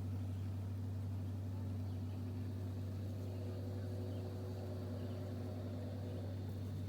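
Steady low drone of a boat engine running on the water, with a faint higher tone joining about two seconds in.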